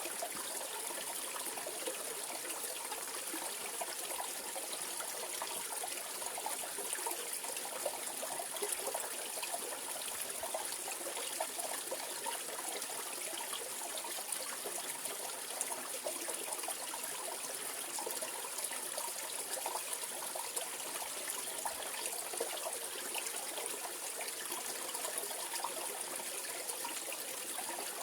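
Mountain valley stream flowing and trickling over rocks, a steady splashing rush of water.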